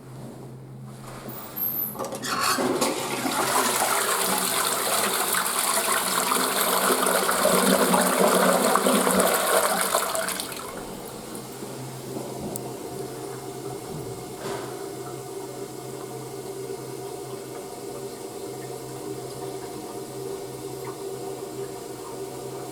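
A toilet flushing: a rush of water starts about two seconds in and lasts about eight seconds, then drops to a quieter steady running of water with a faint hum.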